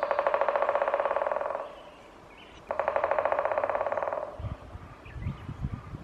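Great spotted woodpecker drumming on a tree trunk: two rapid rolls of knocks, each about a second and a half long, a second apart, the spring territorial signal of the species. A low rumble follows near the end.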